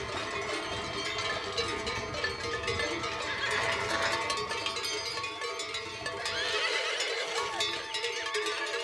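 Many bells on a moving herd of mares and foals clanking and ringing continuously, with a horse whinnying about four seconds in and again near the end.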